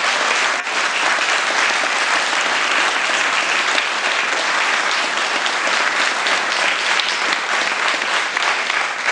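Large audience applauding, many hands clapping in a steady, unbroken ovation.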